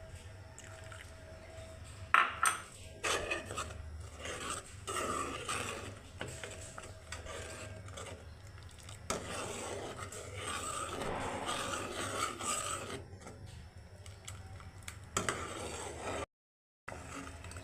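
Kitchen utensils scraping and rubbing against cookware, with a few sharp clinks, the loudest about two seconds in.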